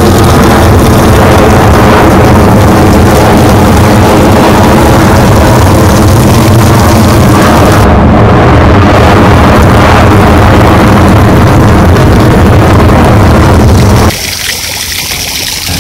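Jet airliner passing low overhead: a loud, steady engine roar that cuts off suddenly near the end.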